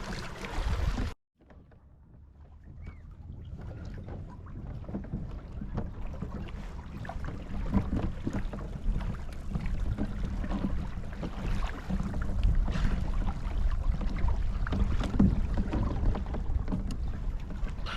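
Wind on the microphone and water sounds on a kayak out on the water, mostly a low rumble with small splashy clicks. The sound cuts out about a second in, then fades back in and grows louder.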